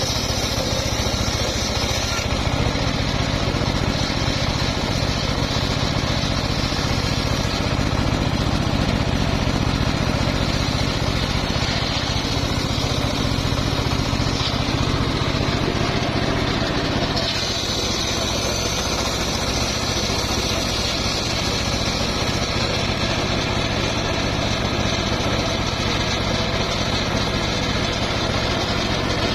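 Homemade engine-driven circular sawmill running steadily. Its tone changes about two-thirds of the way through.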